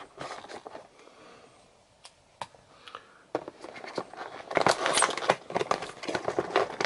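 Scissors snipping at the end of a cardboard toy box, a few sharp clicks with quiet between. From about three seconds in, cardboard and plastic packaging scraping and crinkling as the box end is pried open, busiest about halfway through.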